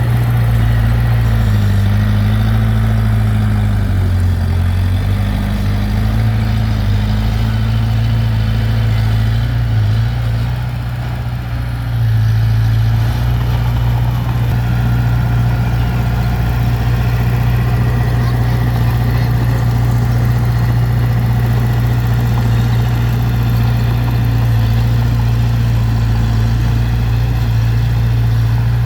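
Heavy diesel engine of earthmoving machinery running steadily, with a slight shift in pitch a few seconds in and a brief easing of level near the middle.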